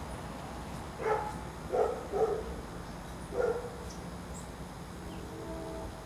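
Four short barks: one about a second in, two close together near two seconds, and one more about three and a half seconds in. A faint pitched sound follows near the end.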